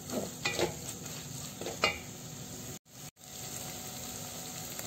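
Onion-tomato masala with ginger-garlic paste sizzling in oil in a steel pot, fried until the paste loses its raw smell. A wooden spatula scrapes through it three times in the first two seconds, and the sound drops out twice, briefly, near the middle.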